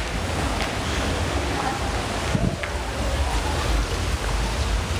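Water wall: a sheet of water running steadily down a large glass pane, giving a continuous rushing splash, with a hand pushed into the falling water.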